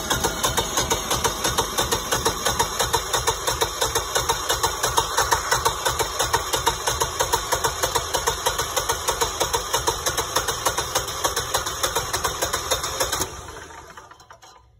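Electric starter cranking the engine of a Generac standby generator, a steady rapid rhythmic chugging without the engine catching, cutting off about 13 seconds in as the controller rests the starter. The propane line is still bleeding air on this first start, so the engine is not yet getting gas.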